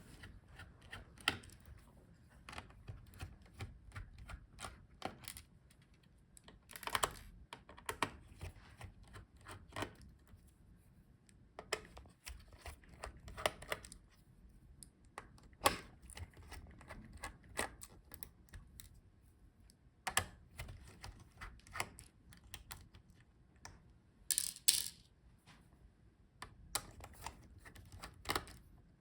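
Irregular light clicks and taps of a small screwdriver, screws and metal parts as the laptop heatsink's screws are taken out, with a brief louder clatter near the end.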